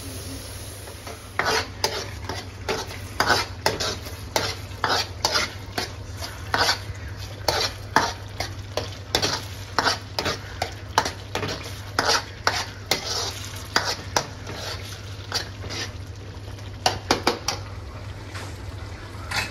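Metal spoon scraping and knocking against a metal karahi as a tomato-onion masala is stirred, about two strokes a second, the masala sizzling in the oil. The strokes stop briefly near the end, then a few more follow.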